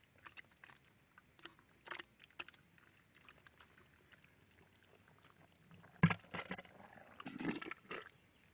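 Drain snake cable working in a clogged sink drain: faint scattered scrapes and clicks, a sharp knock about six seconds in, and a cluster of louder wet scraping and sloshing sounds shortly before the end.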